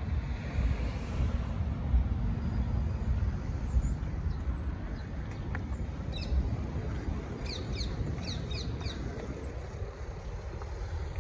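Outdoor ambience: a low, uneven rumbling noise, with a bird chirping a quick run of short, falling calls about seven to nine seconds in.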